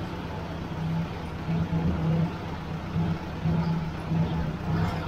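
Ford 600 tractor's four-cylinder engine running at idle after a carburetor swap, with an uneven, pulsing note that swells and drops irregularly.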